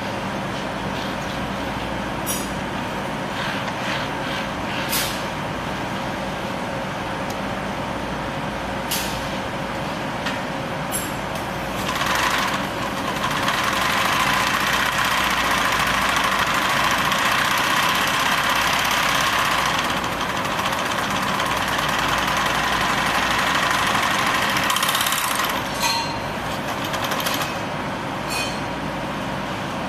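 Megatex MF-2502KBR two-thread carpet sewing machine running and sewing: a louder steady mechanical noise from about twelve seconds in until around twenty-five seconds, over a constant machine hum, with a few sharp clicks before and after.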